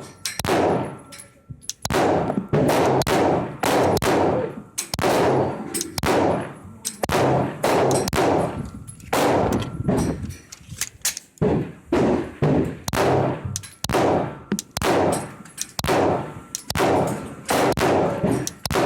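A 9mm Glock 17 pistol fired in a fast, steady string of shots, about two a second, each with a ringing echo. The string pauses briefly twice, once about ten seconds in.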